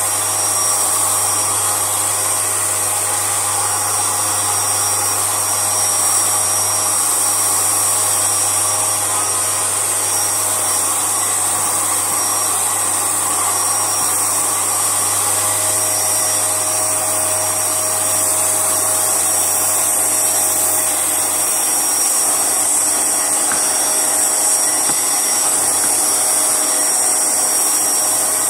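Vacuum cleaner running steadily during a quick cleaning sweep, its motor giving a constant high whine over a rushing hiss.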